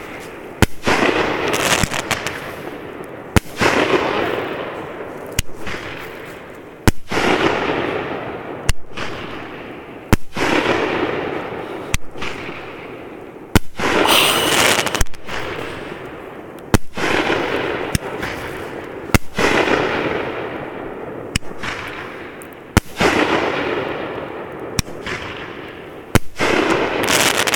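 Fireworks exploding overhead: a sharp bang every one and a half to two seconds, each followed by a rush of noise that fades over a second or two.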